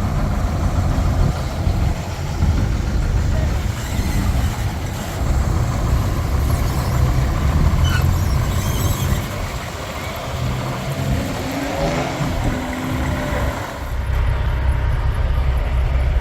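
Heavy diesel truck engine running under load as the truck pulls away, its note climbing through the revs, with an abrupt change in the sound about three-quarters of the way through.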